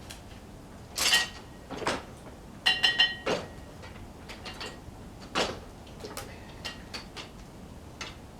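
Old Frick sawmill's carriage and log being worked back by hand: a series of metal clanks and knocks, some with a short metallic ring, clustered a little under three seconds in, then a few lighter knocks.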